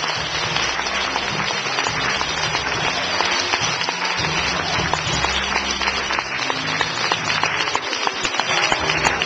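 Audience clapping and applauding steadily throughout, with music playing underneath.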